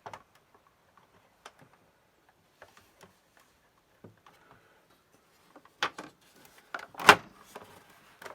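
Plastic casing of a Commodore MPS-801 dot-matrix printer being fitted back together: scattered light clicks and taps, then a few sharp knocks from about six seconds in, the loudest about a second later, as the part is seated after the earth wires that held it high were tucked in.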